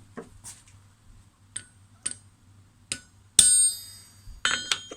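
Hammer striking a centre punch to mark steel for drilling. A few light taps come first, then a hard blow about three and a half seconds in that rings on, and a quick cluster of ringing strikes near the end.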